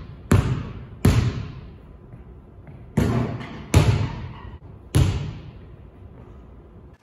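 A basketball bouncing: five sharp bangs, irregularly spaced, each trailing a long echo of a large gym hall.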